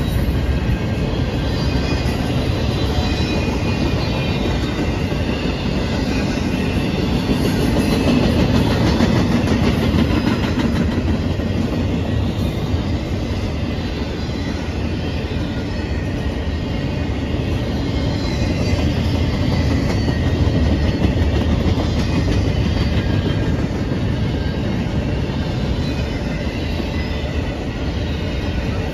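Double-stack intermodal freight train rolling steadily past, its container-laden well cars making a continuous rumble of wheels on rail with a light clatter.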